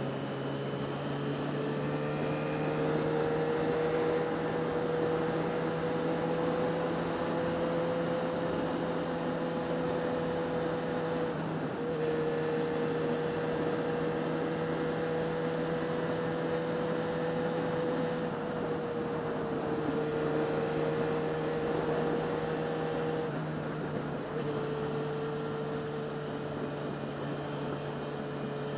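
Yamaha XJ6's inline-four engine running steadily under way with a steady rush of wind. The engine note climbs slowly and dips briefly a few times, about twelve, twenty and twenty-four seconds in.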